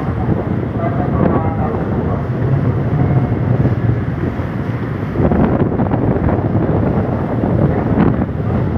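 Wind buffeting the microphone on the open deck of a moving passenger ferry, over the ship's steady running noise and the rush of the sea.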